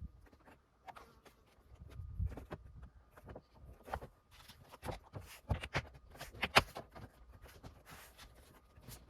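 Irregular plastic clicks and knocks of a car door trim panel being handled and its wiring connectors being plugged in, with a few sharper snaps around the middle.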